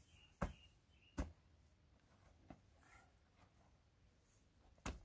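A long-handled tool's blade chopping and scraping into a pile of chopped straw and dry earth, three sharp strikes with a fainter one midway.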